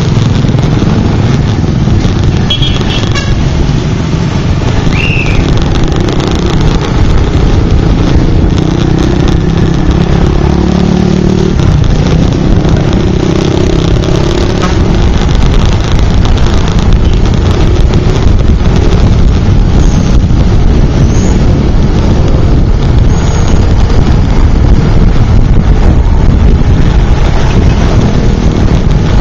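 Motorcycle engine running steadily under way, with heavy wind rush on the microphone and the hum of surrounding traffic. The engine note rises and falls for a few seconds around the middle.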